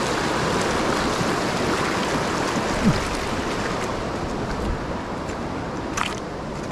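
Rushing water of a shallow, rocky stream, a steady hiss that eases a little after about three seconds, with one short sharp click near the end.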